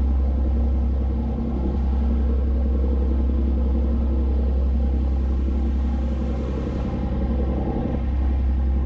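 Sportfishing boat's engines running under way: a deep, steady rumble, with a hiss of wind and water over it.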